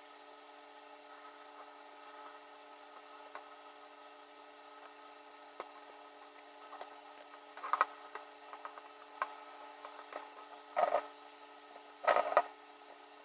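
Hands handling a Nikon D4 camera body and pressing its new rubber front grip into place: scattered small clicks, then short bursts of rubbing and scuffing about 8, 11 and 12 seconds in, over a faint steady hum.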